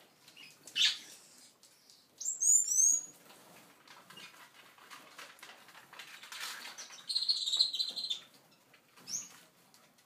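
Seagreen parrot finches calling: a single high call about a second in, then a quick run of about five high chirps, a longer high call lasting about a second later on, and a short call near the end.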